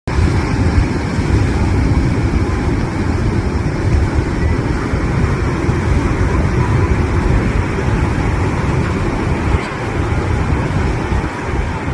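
Big Atlantic waves breaking on the beach: a continuous, loud rush of surf with a heavy, fluttering low rumble.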